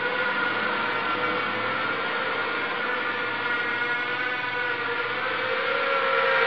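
Small RC quadcopter's electric motors and propellers whirring in flight: a steady high whine whose pitch rises slightly near the end.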